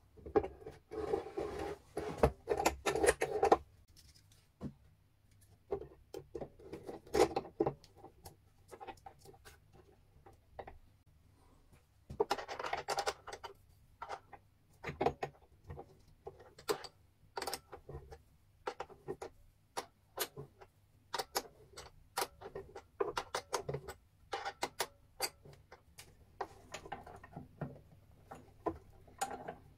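Handling sounds of wood and metal: scraping and knocking as a shop-made wooden sanding table is set onto a drill press, and scattered sharp clicks as the table is adjusted and a sanding drum is fitted into the chuck. Denser scraping comes about a second in and again about twelve seconds in.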